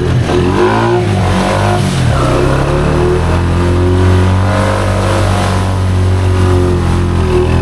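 Honda Foreman ATV's single-cylinder engine revving up and down for the first couple of seconds, then running at a steady pitch.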